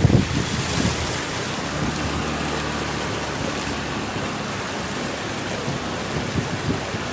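Steady rushing of water thrown up by a motor scooter's tyres riding through flood water on the street, with a faint low engine hum. It is louder at the very start, as another scooter passes close by, spraying water.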